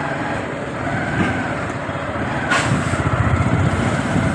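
Motor vehicle engine running in street traffic, with a short hiss about two and a half seconds in.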